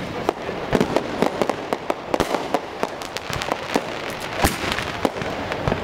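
Fireworks going off at ground level: a rapid, irregular run of sharp pops and cracks, with a louder bang about four and a half seconds in.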